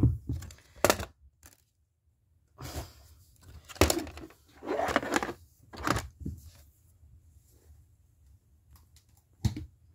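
Plastic exit sign housing being handled: a handful of irregular clicks and knocks of plastic parts with short rustles in between.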